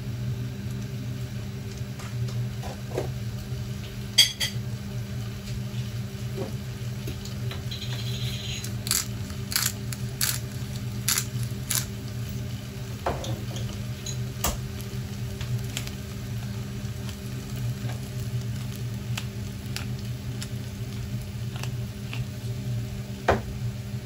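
Kitchen sounds at the stove: a steady low hum runs underneath scattered clicks and knocks of utensils against a pot. The sharpest knock comes about four seconds in, and a quick run of clicks comes around nine to twelve seconds.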